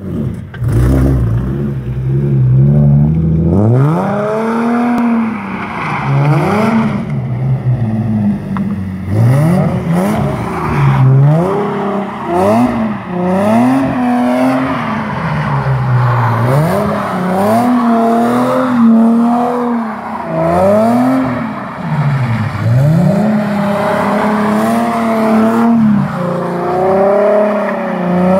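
Infiniti G sedan's V6 engine running low and steady at first, then from about four seconds in revving up and down over and over, roughly every two seconds, as the car slides in circles on wet pavement. Tyre noise from the wet asphalt runs under the engine.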